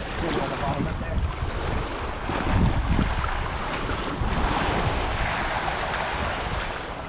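Small surf waves breaking and washing up over the sand, with wind buffeting the microphone as a low rumble.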